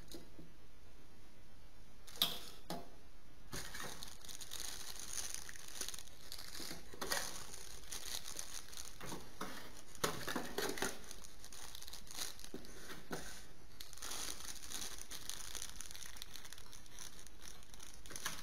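Thin plastic accessory bags crinkling and rustling as they are handled, starting about three and a half seconds in, with a single sharp click shortly before.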